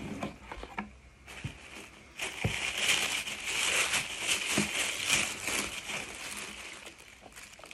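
Shoe-box wrapping and dust bag rustling and crinkling as they are pulled open by hand, with a few light knocks early on, loudest from about two seconds in and fading near the end.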